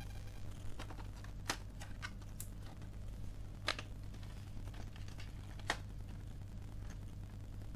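Plastic snap clips of an HP 1000 laptop's palm-rest top cover clicking loose one by one as the cover is pried off by hand, about five sharp clicks spread over several seconds, over a steady low hum.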